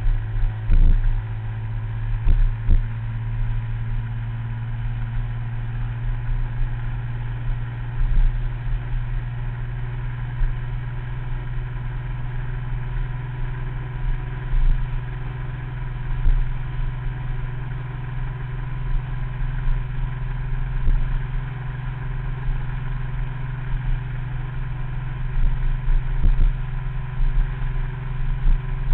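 Small motor scooter's engine running at a steady cruising speed, heard from on board, with a steady hum and a few short knocks now and then.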